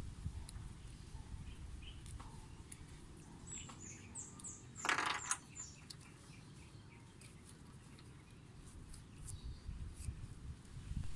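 A bird chirping a quick run of short, high, falling notes a few seconds in, with one brief louder rustle or click in the middle of it, over faint low background noise.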